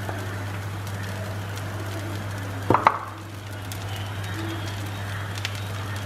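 Dosa cooking on a cast-iron tawa with a faint, steady sizzle over a low hum. About three seconds in there is a short knock as the wooden spoon puts more potato masala onto the dosa, and a couple of small clicks follow near the end.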